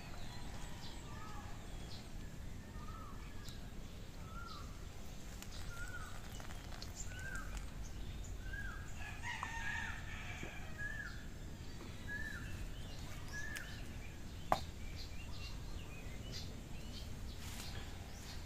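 Rural backyard ambience: a bird repeats a short call about once a second, and a rooster crows briefly around the middle. A single sharp click comes near the end.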